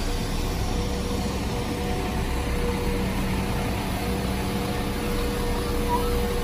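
West Midlands Railway Class 172 Turbostar diesel multiple unit standing at the platform with its diesel engines idling: a steady hum with a held tone.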